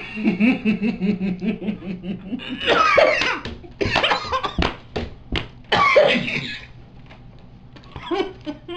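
Stifled, pulsing laughter through a mouthful of gum, followed by three loud coughing bursts, about three, four and six seconds in.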